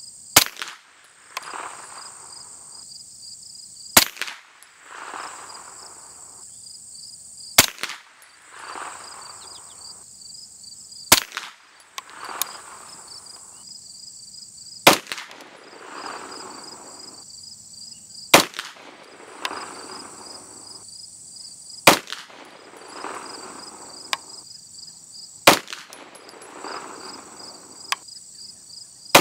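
Eight single shots from a 9mm carbine fired through an AB Suppressors 9mm suppressor, slow deliberate fire about every three and a half seconds, each crack followed by a short echo. Insects buzz steadily and high throughout.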